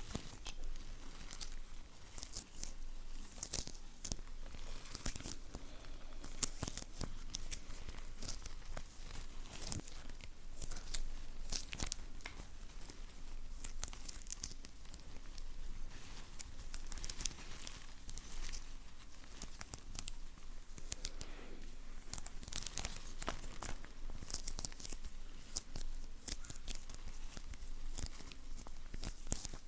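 Close-up ASMR sticky sounds: a sticky surface being pulled and peeled, giving a continuous run of fine crackling and tearing with some crinkling.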